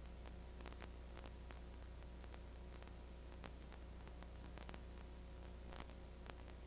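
Faint steady low hum under a hiss, with scattered irregular clicks and crackles and nothing else: the empty soundtrack of an old film transfer.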